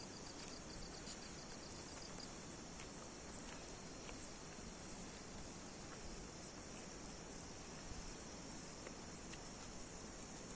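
Night insects chirring steadily in a high, continuous buzz, with a faster pulsed trill in the first two seconds and a few faint ticks scattered through it.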